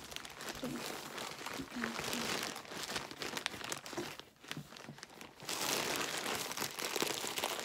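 Plastic bag wrapping crinkling and rustling as it is handled and pulled open by hand. It goes quieter for a moment a little past the middle, then comes back louder and denser near the end.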